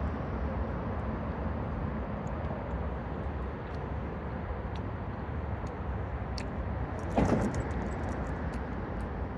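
Steady rumble of road traffic passing over a concrete overpass. A short vocal sound from the person eating comes about seven seconds in, and faint clicks are scattered through.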